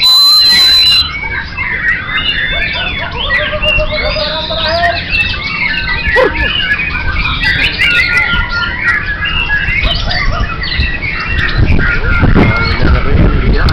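Many caged songbirds singing at once, a dense overlapping mix of whistles, chirps and trills. A loud, steady high tone sounds for about the first second, and a low rumble comes up near the end.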